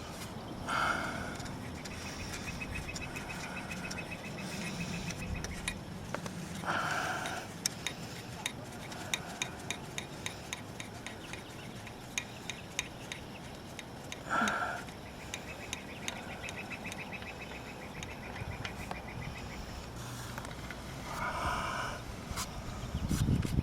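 Hand ratchet on a 17 mm socket clicking in two quick, even runs of ticks while the scooter's oil drain plug is loosened and backed out. Scattered small clicks and a few short scraping knocks of the tool come in between.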